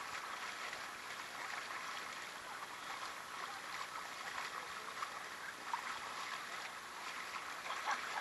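Shallow, clear freshwater creek running and gurgling close by, a steady rush of moving water.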